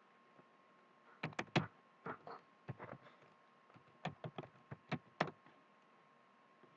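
Computer keyboard being typed on: short sharp keystroke clicks in irregular clusters of a few keys, with brief pauses between them.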